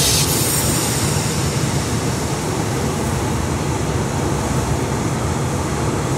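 Steady rushing noise of strong wind and breaking surf, heaviest in the low end, with no distinct events.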